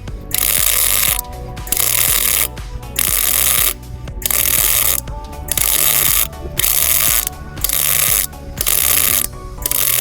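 MIG welder arc crackling on thin 1.2–1.4 mm steel box section, in short bursts of under a second about once a second with brief pauses between them.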